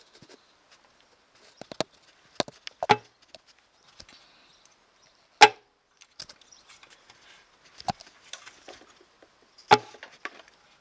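Crankshaft of a Royal Enfield UCE single knocking sharply as it is pushed from side to side by hand, a metallic click each time it hits the end of its travel, several times a few seconds apart. The knocks are the sign of excessive crank end float, caused by the engine sprocket bolt having come undone and fallen out.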